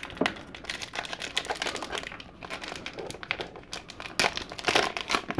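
Foil wrapper of a 1991 Leaf Studio baseball card pack crinkling as it is torn open, with irregular crackles throughout and a couple of louder ones near the end.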